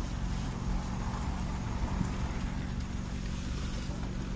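Truck engine running with a steady low hum, heard from inside the cab as the truck rolls slowly.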